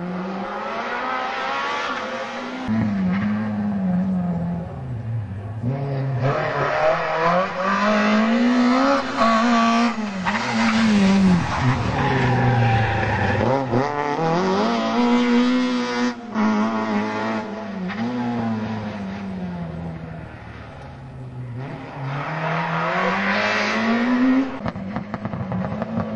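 Rally car engines revving hard one after another through a tight tarmac bend, among them a Citroën Saxo and a Renault Clio. The engine note repeatedly climbs and drops with each gear change and lift-off, dips briefly between cars, then rises again as the next car arrives.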